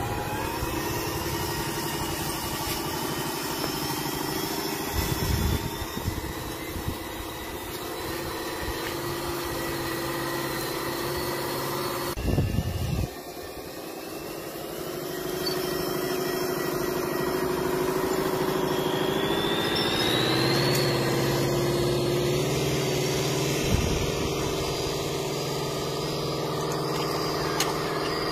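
Truck engine sound from a radio-controlled semi truck, running steadily at low revs. It changes abruptly about twelve seconds in, and rises in pitch briefly about twenty seconds in.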